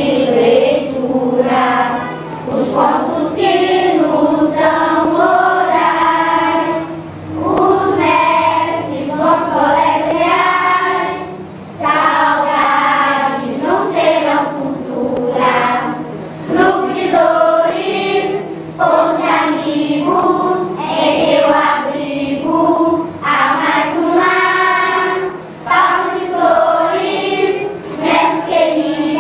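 Children's choir singing a song, sung phrases broken by short pauses for breath.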